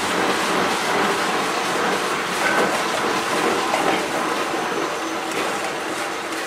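Steam locomotive letting off steam from low down at its front: a steady hiss that eases slightly in the second half.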